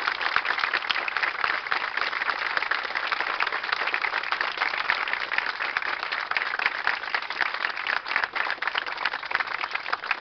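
A crowd of people clapping their hands in sustained, dense, even applause: the minute-long round of applause called for in tribute.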